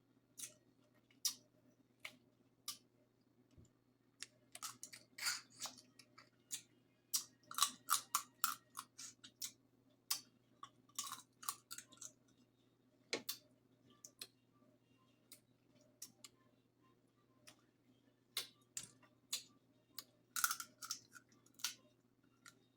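Close-miked eating of a seafood boil: irregular wet mouth clicks and smacks of chewing, coming in clusters with short pauses between.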